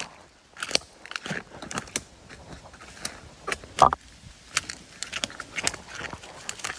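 Footsteps crunching and crackling on twigs and dry leaf litter of a forest floor, in an irregular run of short crunches with one louder snap a little past the middle.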